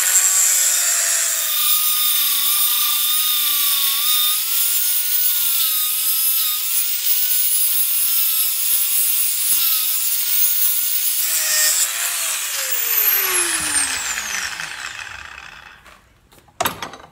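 Angle grinder with an undersized metal cut-off disc cutting steel: a loud grinding hiss over the motor's whine, which wavers in pitch under load. About twelve seconds in the grinder is switched off and spins down in a falling whine.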